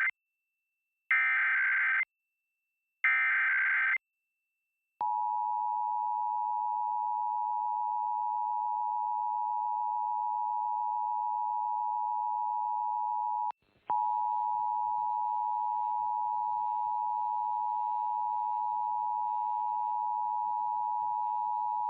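Emergency Alert System SAME header: the end of one rasping data burst, then two more about a second apart. Then comes the EAS two-tone attention signal (853 and 960 Hz), a steady, piercing dual tone. It drops out for a moment about halfway through and resumes with faint background noise under it.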